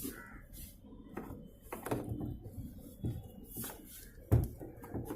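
Plastic clicks, knocks and rubbing as a replacement refrigerator door switch is pushed and worked into its tight-fitting slot in the fridge. A sharp knock about four seconds in is the loudest.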